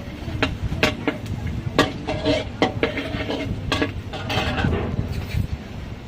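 Metal spatula stirring in a wok, clanking against the pan every second or so, over a steady low rumble.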